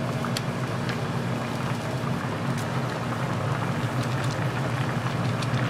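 Food sizzling with scattered small crackles, over a steady low hum.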